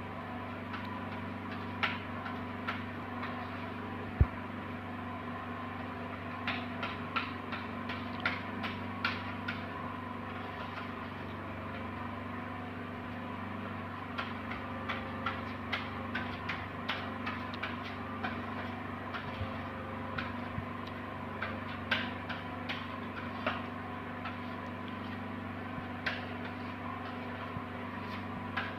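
A steady low hum with many light, sharp clicks and ticks scattered irregularly over it, some coming in quick little clusters.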